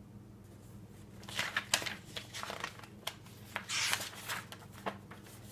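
Paper being handled: a run of rustles and soft clicks, with one longer swish just before four seconds in. It sounds like the pages of the picture book being turned. A faint steady hum lies underneath.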